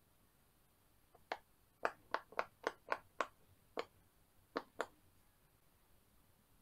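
Silicone pop-it fidget board bubbles popped one after another by a finger, about ten sharp pops, most in a quick run of about four a second.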